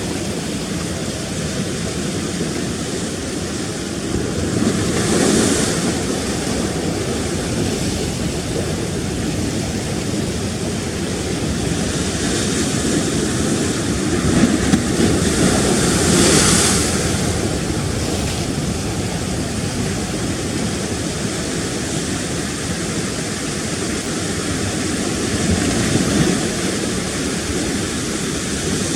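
Rough sea rushing and washing against rocks, a steady surf noise with two louder surges as waves break, about five seconds in and again around the middle.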